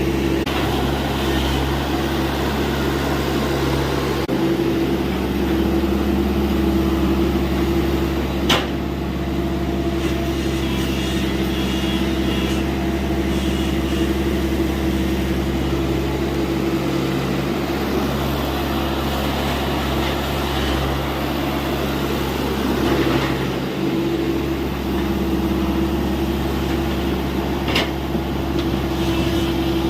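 TATA Hitachi EX70 excavator's diesel engine running steadily while digging, with two sharp knocks, one about a third of the way in and one near the end.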